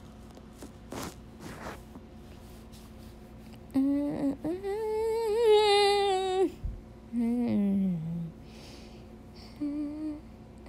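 A woman humming with her mouth closed: one long held note that wavers slightly, then a shorter falling note, and a brief note near the end.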